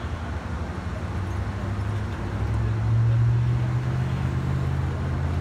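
Road traffic: cars driving past with a steady low rumble that swells louder about halfway through.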